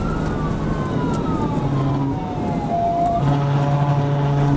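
Police cruiser siren wailing during a high-speed pursuit, its pitch sweeping slowly up and down, with a second wail overlapping it, over road and engine noise. A steady low droning tone joins about three seconds in.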